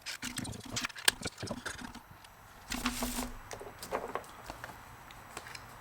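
Small parts being handled during fuel pump assembly: scattered clicks and light knocks, with a short rustle about three seconds in.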